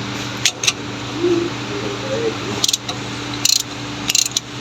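Hand ratchet working a T55 Torx wheel hub bolt, clicking in short bursts of strokes a second or so apart, over a steady low hum.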